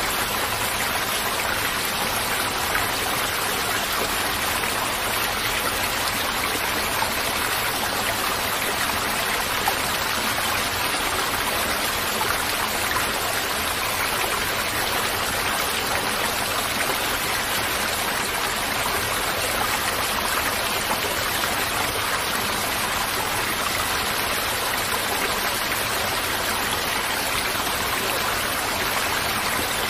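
Running water of a stream: a steady, even rush that does not change.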